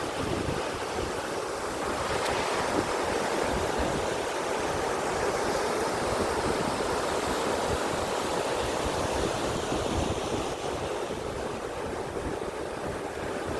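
Sea surf washing steadily onto the shore in strong wind, with gusts buffeting the microphone.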